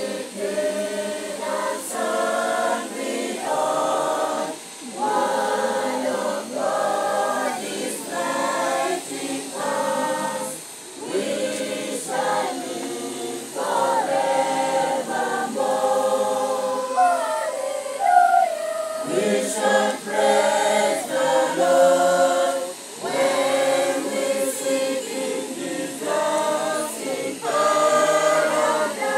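A mixed youth choir singing unaccompanied, phrase after phrase, with only brief breaths between lines.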